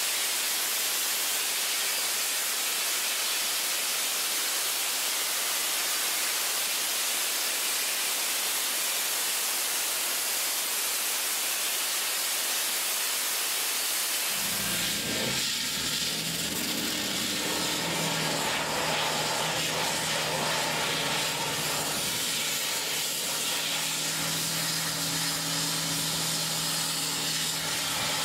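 EcoQuip vapor blaster nozzle firing water and garnet abrasive at rusted steel, a steady hiss. About halfway through, a steady low machine hum joins the hiss.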